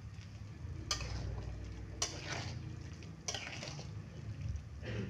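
Metal spatula stirring tofu, tempeh and green chilies in broth in a metal wok, scraping the pan four times about a second apart.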